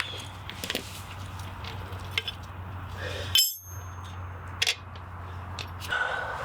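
Metal tools and bolts clinking and tapping while undoing chassis bolts, a few separate clinks with one sharp, ringing clink about halfway through, over a steady low hum. A rushing noise starts near the end.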